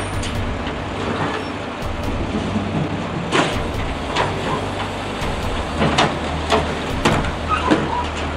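Automated side-loader garbage truck's diesel engine running while its hydraulic arm lifts a wheeled polybin, tips it into the hopper and sets it back down. A series of sharp knocks and bangs comes from about three seconds in, as the bin is shaken out and knocks against the arm and the truck.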